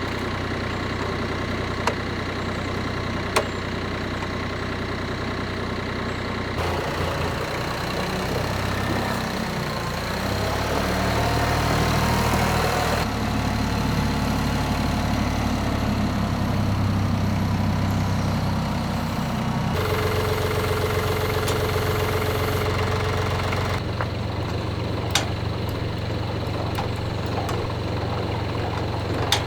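An engine running steadily, with its pitch and loudness shifting abruptly a few times. There are a few sharp clicks, about two and three and a half seconds in and again near the end.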